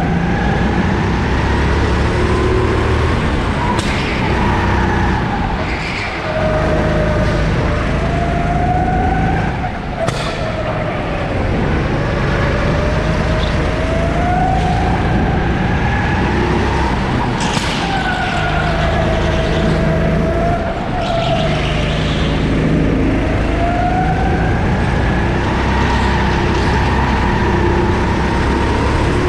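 Sodi 270 cc four-stroke kart engine running hard, its pitch climbing as it accelerates and falling away several times as it comes off the throttle, lap after lap of rising and falling revs. A few sharp knocks stand out over it.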